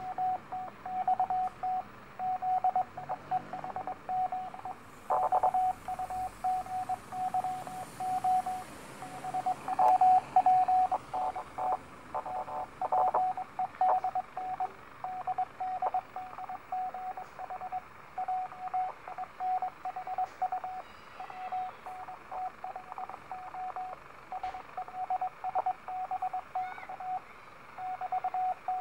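Morse code (CW) signal on a Sangean ATS-909X shortwave receiver in USB mode: a single beat tone of about 700 Hz keyed on and off in dots and dashes over a band of radio hiss. A few brief crackles of static break in near the middle.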